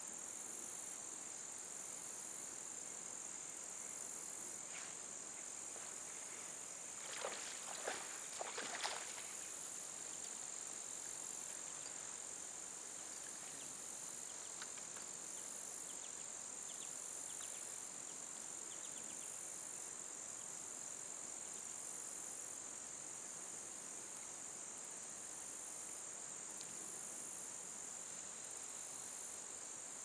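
Steady high-pitched chorus of insects with a slight pulsing. A few brief sharp clicks and rustles come together about a quarter of the way in.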